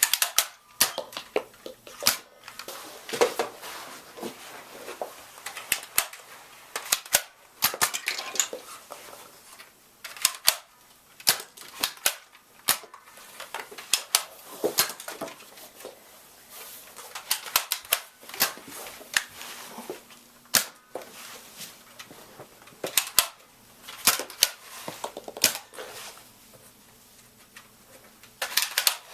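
Nerf blasters firing again and again, sharp popping shots at irregular intervals, sometimes several in quick succession.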